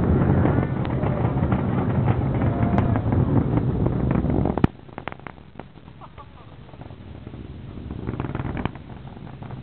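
Distant rocket launch rumble with crackling, mixed with wind buffeting the microphone. About halfway through the noise drops sharply after a click, then slowly builds again.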